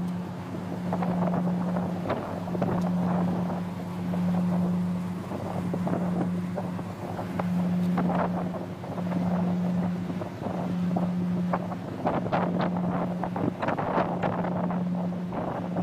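Passing general cargo ship's diesel engine: a steady low hum that dips briefly about once a second, with wind buffeting the microphone.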